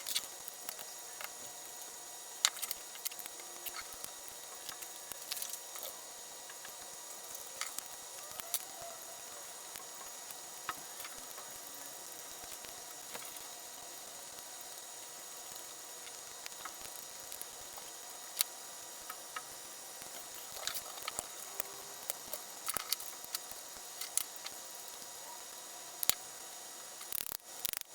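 Scattered light clicks and taps of small mechanical parts and fasteners being handled and fitted during assembly, over a faint steady hiss.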